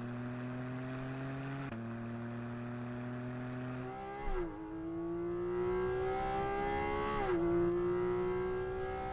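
Porsche Cayman GT4 RS's 4.0-litre naturally aspirated flat-six accelerating, its pitch climbing steadily and dropping sharply twice as it shifts up.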